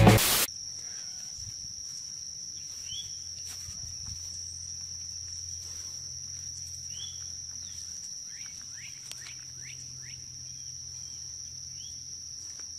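Insects making a steady high-pitched drone, with faint short chirps scattered through it. Loud rock music cuts off about half a second in.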